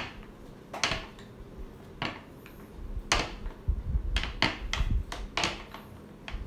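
Small clear rolling pin being rolled back and forth over cold porcelain paste on a plastic board: a low rolling rumble with irregular sharp clicks and knocks as the pin and hands meet the board.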